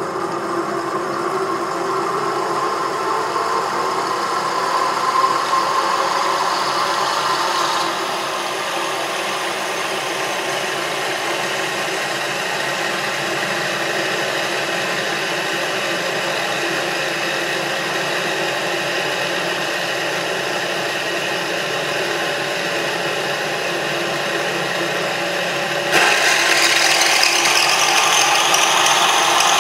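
Small homemade low-voltage motor with a steel flywheel, spinning its shaft in two bearings and giving a steady rattling buzz. Its tone shifts about eight seconds in, then turns suddenly louder and harsher a few seconds before the end.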